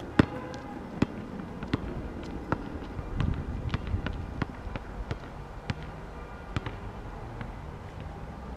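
A basketball bouncing on an asphalt court as it is dribbled: sharp bangs about once a second, loudest in the first two seconds and fainter after that.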